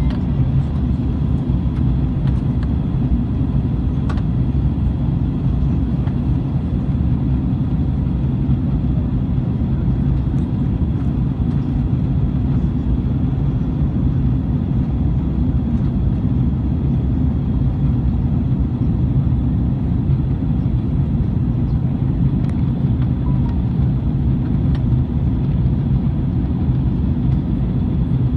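Airliner cabin noise: the steady low rumble of jet engines and airflow heard from inside the passenger cabin, with a faint steady high whine above it.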